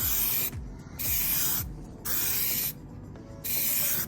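Aerosol can of Rust-Oleum spray paint hissing in four short bursts, each well under a second, as a first coat goes onto plastic interior trim.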